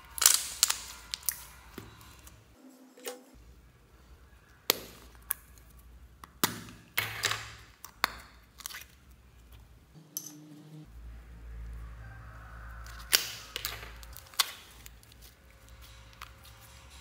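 Slime squeezed and poked by hand, giving a string of sharp pops and clicks as trapped air bursts. The pops come in irregular clusters: several near the start, more between about five and eight seconds in, and a couple later on.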